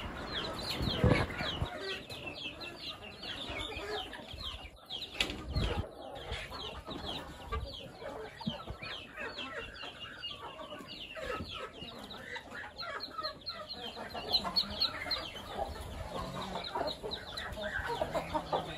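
A flock of chickens feeding, with a constant stream of short, high, falling cheeps and clucks, several a second. A few dull thumps come about a second in and again around five seconds in.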